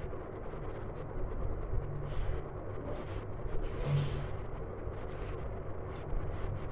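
Pen scratching on paper as words are handwritten in short strokes, over a steady low background rumble.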